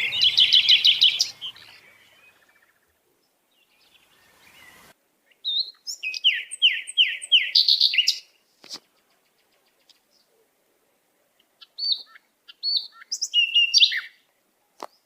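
A songbird singing in three short bouts of quick repeated high notes, with near silence between the bouts.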